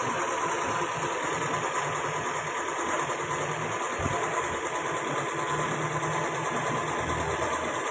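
Toyota Vitz petrol engine idling with a misfire, running slightly unevenly, with one short knock about four seconds in.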